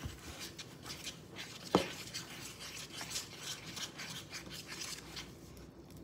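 A utensil stirring a thin flour, cornstarch and club-soda batter in a bowl, scraping and clicking in quick repeated strokes. There is one sharper knock against the bowl about two seconds in.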